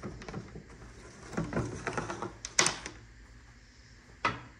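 A few sharp clicks and light clattering, busiest in the middle, with the loudest click about two and a half seconds in and another near the end.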